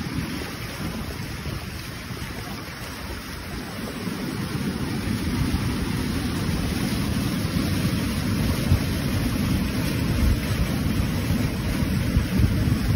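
Muddy flash-flood water rushing down a rocky wadi in a steady, dense wash of noise, getting louder about four seconds in. Wind noise on the phone's microphone adds a low rumble.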